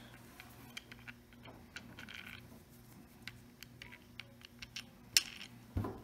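Faint small clicks and taps of small screws being set into the plastic switch cap of an Oster 76 clipper by hand, with one sharper click about five seconds in.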